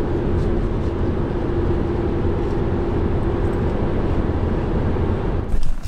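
Steady low rumble of a running motor with a constant hum, cutting off suddenly near the end.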